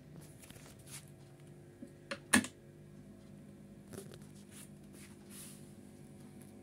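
Sugden Connoisseur turntable running with its platter spinning, a quiet low steady hum, with light clicks and rustling of handling and one sharp knock a little over two seconds in.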